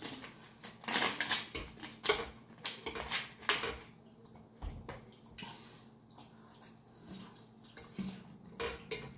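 Mukbang eating sounds: chewing and mouth smacking, with a fork clicking and scraping on a glass plate. The sounds come thickest in the first few seconds, then more scattered.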